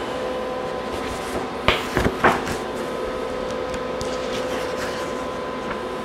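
Steady electrical hum with a few level tones, and a quick cluster of three or four sharp knocks about two seconds in.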